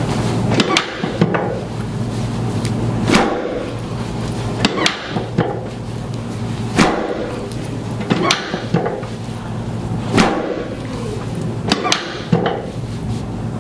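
Sharp knocks and clacks from chiropractic adjustments on a patient lying face down. About a dozen hits, some in quick pairs, come every second or two.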